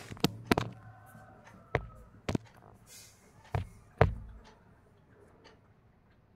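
About six short, sharp knocks and taps spread over the first four seconds or so.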